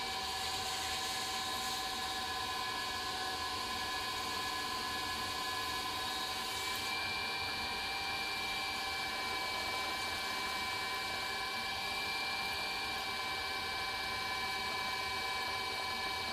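Electric potter's wheel motor running steadily, a constant whine of several tones over a hiss as the wheel head spins.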